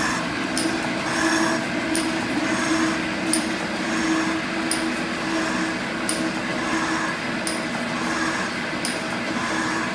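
Metal shaper running, its ram stroking back and forth while taking an angled cut in a cast-iron straight edge. A steady hum runs underneath, with a sharp click about every one and a half seconds, once per stroke.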